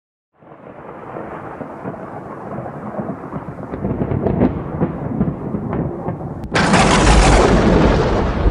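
Thunder sound effect: a rumble with crackles that builds for several seconds, then a sudden loud thunderclap about six and a half seconds in that keeps rolling.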